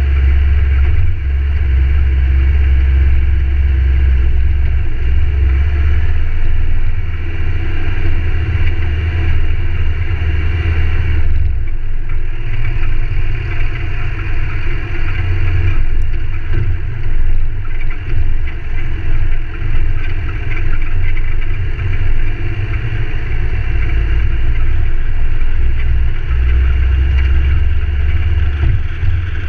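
Ford Ranger driving along a dirt forest track: a steady, loud low rumble of engine and tyres on gravel. The rumble eases about twelve seconds in and builds again near the end.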